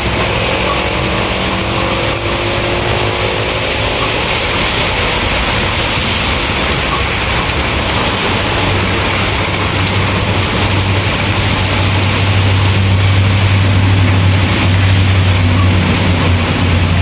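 Steady, heavy rain hissing, with a low rumble underneath that grows louder about halfway through.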